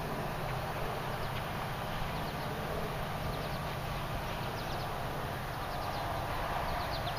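Steady outdoor background noise with a low hum underneath. Several times it is broken by quick clusters of faint, high chirps or ticks.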